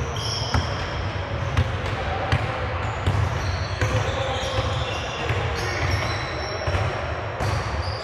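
Basketball game sounds in a large gym with reverberation: a ball bouncing on the hardwood floor now and then, sneakers squeaking in short high chirps, and players' voices calling out.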